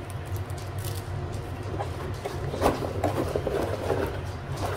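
Cardboard insert of a board game box being lifted out, with cardboard scraping and rubbing and a few light knocks from about two seconds in, the sharpest right at the end. A steady low hum lies underneath.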